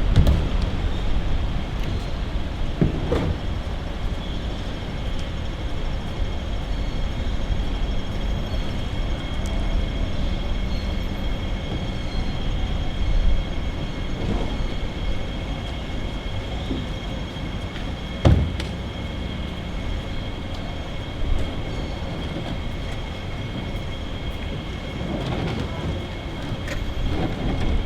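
Barber shop room ambience: a steady low rumble with a constant thin high hum, and a few short knocks or clatters, the sharpest about two-thirds of the way through.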